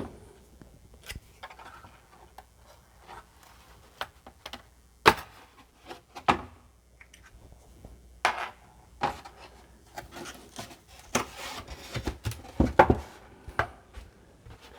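Hands handling an opened Commodore 64 computer: irregular sharp clicks and knocks of its parts, with some rubbing in between, the loudest about five seconds in and again near thirteen seconds.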